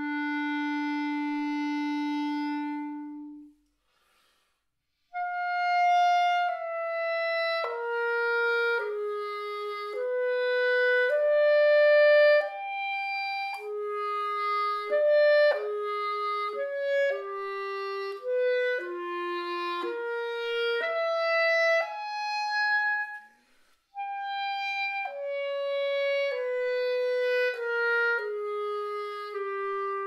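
Solo B-flat clarinet playing unaccompanied. A long held note fades away to silence, and after a short pause a slow melodic line of sustained notes moves up and down. It breaks off briefly near the end before going on.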